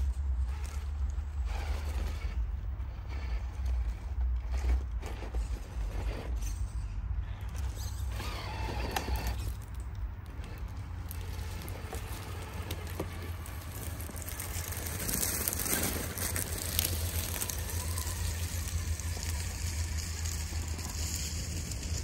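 RC crawler's electric motor and geared drivetrain whining as it works up a steep bank, the whine rising and falling about a third of the way in, with tyres crackling over dry leaves and twigs. A steady low rumble lies underneath.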